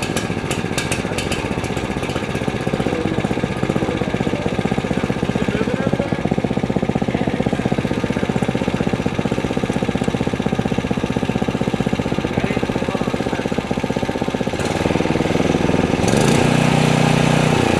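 A 10 hp Briggs & Stratton gasoline engine running steadily, powering a percussion well-drilling rig through its gear reduction, with a run of sharp clicks in the first second or so. About 15 seconds in the sound changes, and near the end it gets louder with a stronger low hum.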